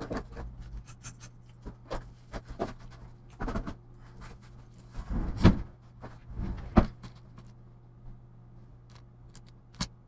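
Rummaging through small spare parts for screws and threaded inserts: irregular clicks, rattles and knocks, the loudest two a little past halfway, over a steady low hum.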